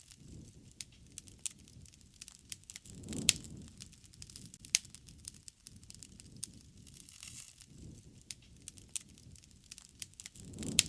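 Wood fire crackling: irregular sharp pops and snaps over a soft, low rumble of flames that swells and fades, with a louder surge about three seconds in and again near the end.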